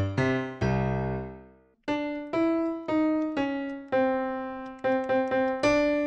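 Piano sound from GarageBand's keyboard on an iPad, played live: a few chords that ring and fade, a short gap about two seconds in, then a slow run of single notes, each struck and decaying.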